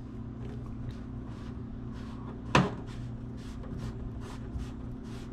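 Plastic PVC sink drain fittings being handled and fitted by hand: a single sharp knock about two and a half seconds in, then faint soft brushing sounds, over a steady low hum.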